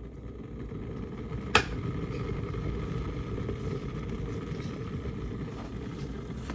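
Glass electric kettle heating water with a steady low rumble, with one sharp click about one and a half seconds in.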